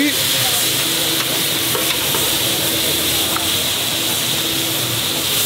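Half-cooked meat sizzling as it fries in hot oil in a large karahi wok: a steady, loud hiss.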